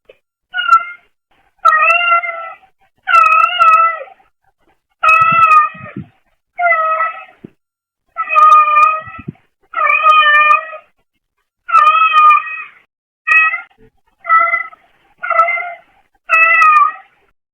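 A brown tabby cat meowing repeatedly, about a dozen separate meows roughly a second or so apart, picked up through a pet camera's microphone.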